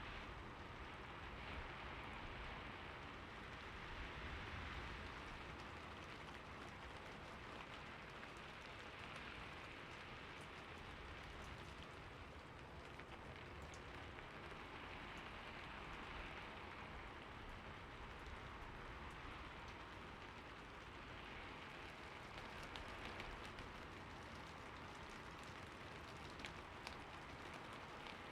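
Steady rain falling: an even, soft hiss with a few sharper drop ticks.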